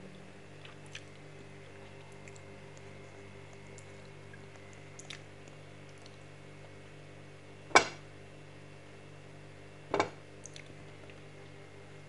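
Metal spoon knocking twice against a ceramic plate, two sharp clinks about two seconds apart in the second half, over a low steady hum.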